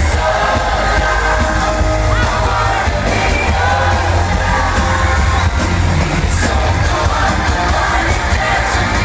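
Live pop concert heard from the crowd: amplified band and singing with heavy, boomy bass, and fans yelling along.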